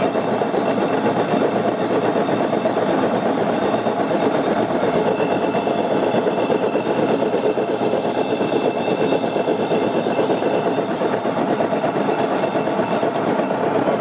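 Old washing machine commutator (series) motor running on 48 V DC, its rubber-collared shaft driving a washing machine drum by the rim. A steady, even whirring rumble with a faint high whine.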